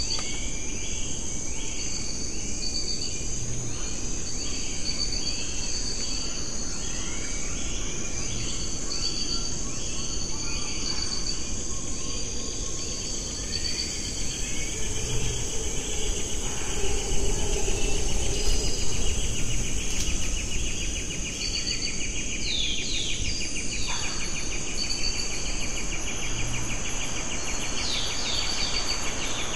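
Tropical rainforest ambience from camera-trap microphones: a steady high insect drone in several layered tones, with a run of short repeated calls over the first ten seconds and a few quick falling bird chirps near the end. The background changes abruptly twice as one recording cuts to the next.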